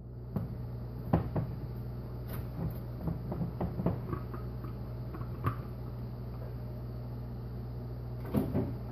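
Scattered hard-plastic clicks and knocks as the blade top is unscrewed and taken off a Nutri Ninja blending cup, over a steady low hum.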